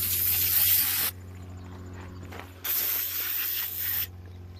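Aerosol can of foaming engine degreaser spraying in long hissing bursts: one ends about a second in, another runs for about a second and a half in the middle, and a third starts right at the end. A steady low hum runs underneath.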